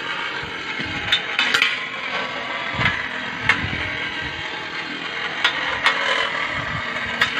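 Two spinning Beyblade tops, one of them a metal Twisted Tempo, whirring and scraping on a stainless-steel dish, with a handful of sharp metallic clicks as they make contact.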